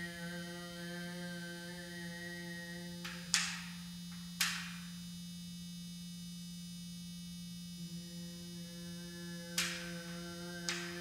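Steady low drone with a rich stack of overtones, from overtone singing and an Arduino-driven speaker resonating through a timpano's drumhead; several of the overtones fade out for a few seconds in the middle and then return. Two sudden sharp noises about a second apart cut in about three seconds in, and two more come near the end.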